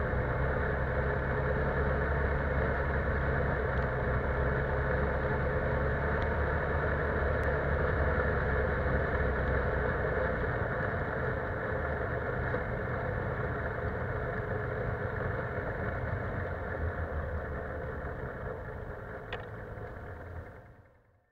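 Single-cylinder four-stroke ATV engine running steadily while the quad rides along a grassy dirt trail, fading out near the end.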